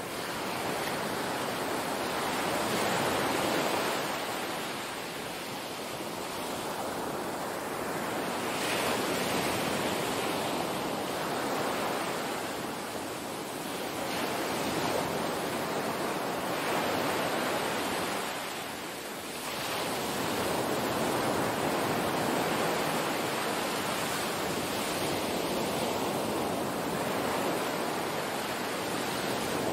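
Small waves breaking and washing up onto a sandy beach, the surf swelling and easing every few seconds.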